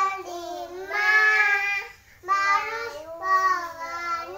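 Young child singing an Indonesian children's song in long held notes, with a short break about two seconds in.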